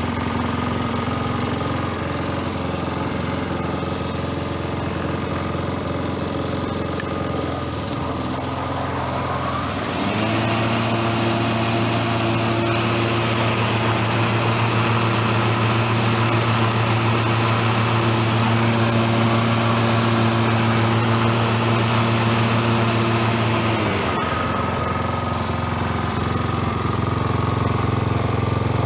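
Toro Timemaster lawn mower's Toro 1000 Series GTS single-cylinder petrol engine running steadily on a test run after a new blade brake clutch cable. About ten seconds in its pitch steps up and it gets a little louder, then near twenty-four seconds it drops back to the lower speed.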